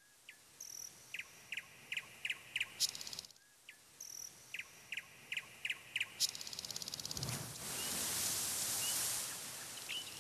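Faint outdoor nature ambience: short chirps in runs of about three a second, the run heard twice, then a swell of rushing noise that rises and falls, with a few more chirps near the end.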